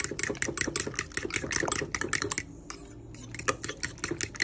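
Metal fork beating raw eggs in a ceramic bowl: quick, rapid clicks of the fork against the bowl, with a short pause about halfway through.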